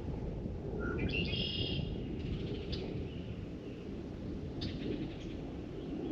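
A bird calls once about a second in: a short rising note followed by a bright, buzzy trill lasting about a second. A steady low rush of outdoor noise runs underneath, with a few faint clicks.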